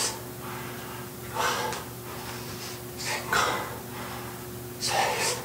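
A man's hard breaths out during exercise: three loud, forceful exhales, one about every second and a half to two seconds, each timed to a repetition, over a steady faint hum.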